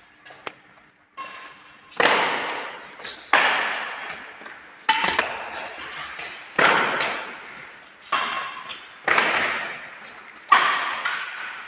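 Badminton rackets striking a shuttlecock back and forth in a rally: about seven sharp hits, roughly one every second and a half, each ringing on in a large hall's echo.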